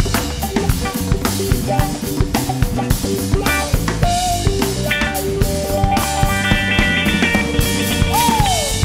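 Live funk band playing: a drum kit keeps a busy, steady beat over bass and hand percussion. Held higher notes come in about six seconds in, and a note slides down in pitch near the end.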